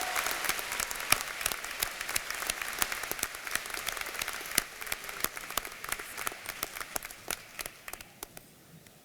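Audience applauding, fading away to a few last scattered claps near the end.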